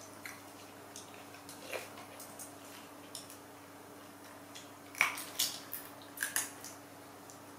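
A monkey cracking and peeling longan shells with its teeth and fingers while pulling fruit from the bunch: scattered small crackling clicks, with a louder run of sharp cracks about five seconds in.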